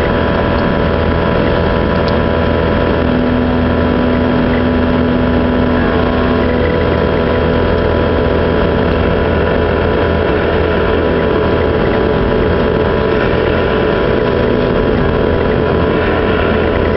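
Doosan DX300LC excavator's diesel engine and hydraulics running steadily under working load. A steady higher tone joins for a few seconds about three seconds in.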